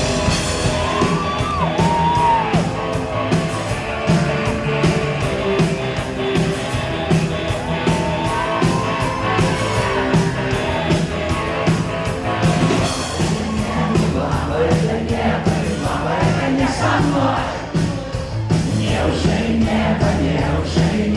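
Live rock band playing loud, recorded from the audience, with a steady drum beat and the crowd singing and shouting along, the crowd voices thickening in the second half.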